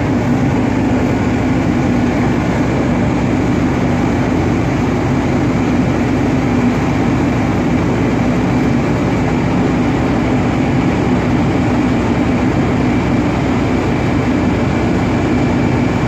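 Steady, loud low drone of a ship's engine running, with an even rushing noise of wind and churning water over it.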